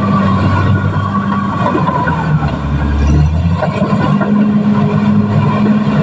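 Caterpillar D6R XL bulldozer's diesel engine running steadily at working revs. About halfway through its note sags and deepens for a second or so, as if under load, then picks back up.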